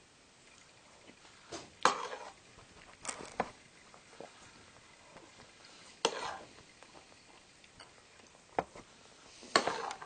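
Spoon clinking against a soup bowl while soup is eaten: a handful of short, separate knocks, a second or more apart.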